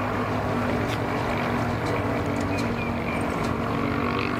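Mercury outboard motor running steadily at low speed, pushing a center-console boat slowly through the water.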